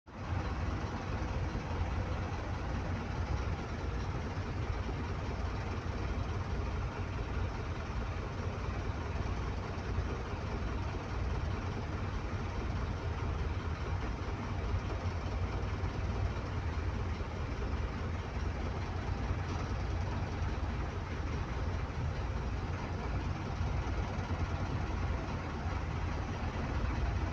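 Boat engine running steadily, heard aboard as a continuous low rumble with a noisy wash above it.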